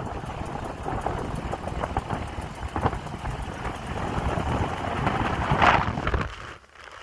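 A truck driving along, its engine and road noise mixed with wind rushing over the microphone. The noise builds to its loudest just before six seconds in, then falls away sharply near the end.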